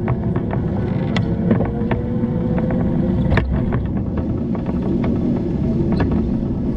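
Steady low rumble of a bicycle riding along a road, tyre and wind noise, broken by frequent sharp clicks and rattles.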